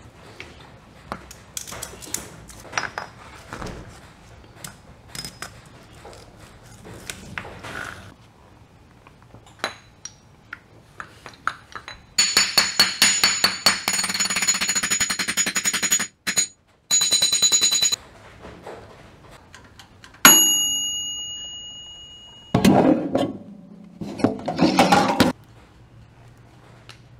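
Metal transmission parts and tools handled on a workbench: light clinks and taps, then a rapid metallic rattle lasting about six seconds and broken off briefly partway, a single sharp metal clang that rings out for about two seconds, and rough bumping noise near the end.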